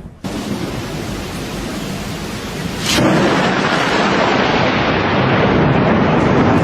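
Storm noise: a dense, steady rush of heavy rain and wind. It jumps louder after a sudden break about three seconds in.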